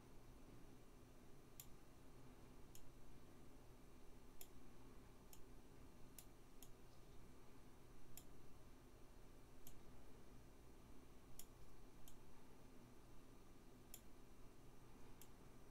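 Faint, sharp computer mouse clicks at irregular intervals, about one a second, over quiet room tone, as a Blender sculpt is worked on with the mouse.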